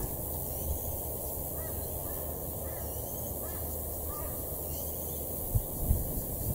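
Quiet bush background with faint, distant bird calls, and a few short low thumps near the end.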